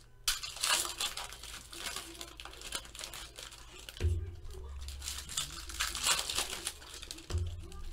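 Foil trading-card pack wrappers being torn open and crinkled by hand, a run of scattered crackles and rustles.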